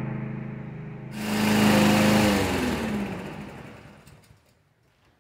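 A small push-mower engine running steadily, left to warm up after a cold start. About a second in it suddenly gets louder. It is then shut off: its pitch falls as it spins down, and it dies away within a couple of seconds.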